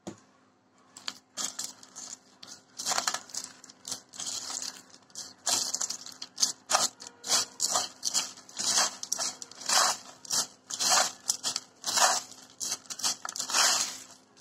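A hand mixing dry fried flattened rice (chira) with chanachur and chopped vegetables in a ceramic bowl: crisp, crunchy rustling and scraping in repeated strokes, about one or two a second, starting about a second in.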